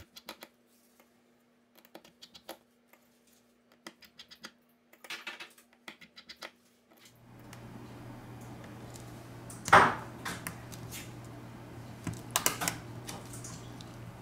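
Small clicks and taps of a precision screwdriver and small screws on a smartphone's inner frame as the screws are taken out. From about seven seconds in a steady low hum sets in, with a sharp click near ten seconds and a few more about two seconds later.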